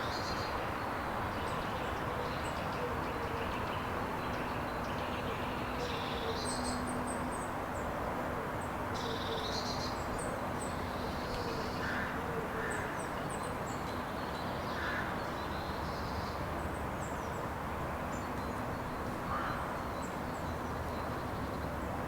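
Steady outdoor background noise with scattered bird calls: short high chirps throughout and a few brief, lower calls.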